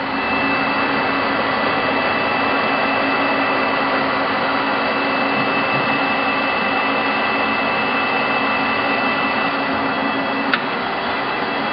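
Acraturn 16x40 engine lathe running with its spindle turning, driven by its 5 horsepower motor: a steady mechanical hum and whir with a few constant whining tones. A single sharp tick comes about ten and a half seconds in.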